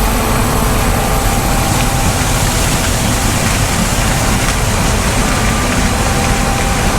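Farm machinery's diesel engine running steadily under a broad, even rush of noise, with a low rumble and a few faint steady tones.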